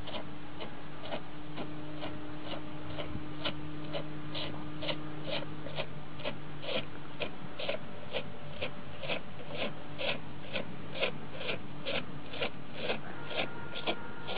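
Dairy cow suckling from its own udder: rhythmic sucking strokes about twice a second, over a faint steady hum.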